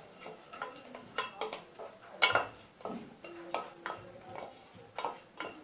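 A spoon stirring spice masala in a cooking pan, with irregular knocks and scrapes against the pan; one knock about two seconds in is the loudest.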